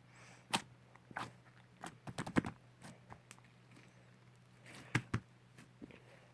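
Slime being kneaded and pressed by hand, giving irregular sharp clicks and pops as trapped air bursts, with a quick run of them about two seconds in and the loudest pair about five seconds in.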